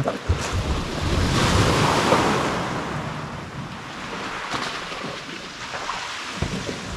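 Sea surf washing in, swelling about a second in and slowly fading over the next few seconds, with wind buffeting the microphone.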